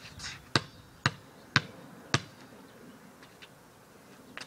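A basketball bouncing four times on pavement, about two bounces a second, as it is dribbled before a free throw.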